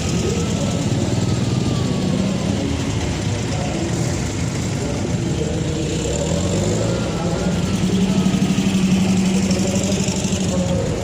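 Car engine running at idle, growing louder for a couple of seconds about two-thirds of the way through, with voices in the background.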